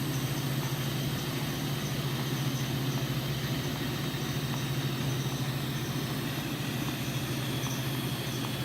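TIG welder running while welding stainless steel exhaust pipe: a steady low hum over a constant hiss.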